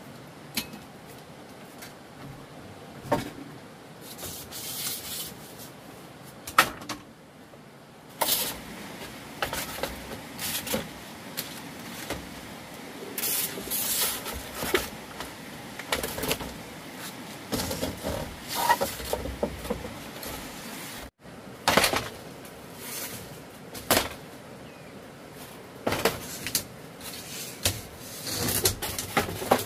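Hand work with wood: irregular knocks and clicks mixed with scraping and rubbing, broken by a sudden cut about two-thirds of the way through.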